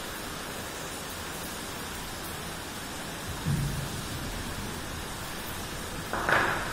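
Steady hiss of background noise, with a brief low thud about three and a half seconds in and a short, louder rustle near the end.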